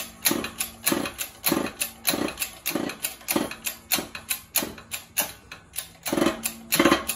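Hydraulic shop press being hand-pumped in an even rhythm, a stroke a little under twice a second, with a short pause near the end. It is pressing a bearing and sixth gear onto a TR6060 transmission mainshaft, a hard press fit.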